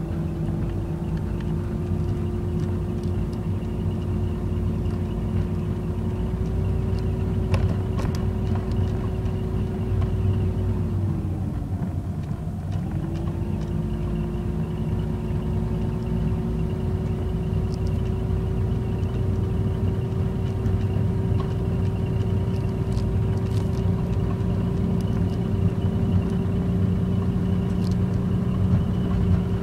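Mazda RX-8's twin-rotor Renesis rotary engine running steadily with a strange chirping noise. A steady hum dips in pitch and recovers about halfway through, and faint short chirps come and go.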